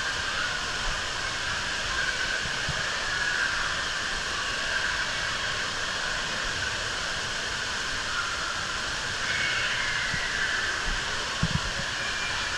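Steady rushing din of an indoor waterpark hall: running and splashing water, with faint indistinct voices in the wash. Two short low thumps about a second before the end.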